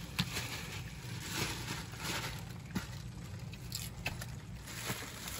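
Wet rustling, squishing and light clicks from hands sorting a pile of freshly caught shrimp, small fish and crabs and dropping them into a metal pot, with a steady low hum underneath.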